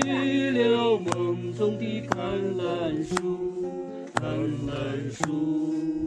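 Acoustic guitar strummed in chords about once a second, with a man's voice holding and bending a wordless note at the start, between sung verses.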